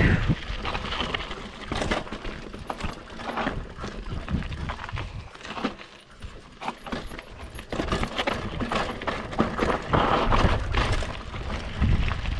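Mountain bike clattering down a rough, rocky trail: a fast, irregular run of rattles, clicks and knocks from the bike over bumps, easing for a moment near the middle.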